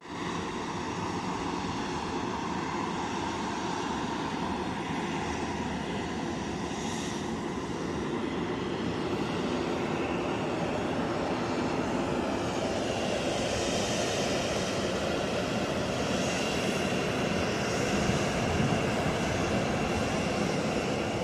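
Airliner's engines running steadily, growing somewhat louder about halfway through as a steady high whine comes in.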